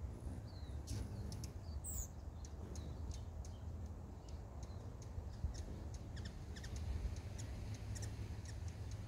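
Hummingbirds giving many short, high, thin chip notes, scattered irregularly throughout, over a low steady background rumble.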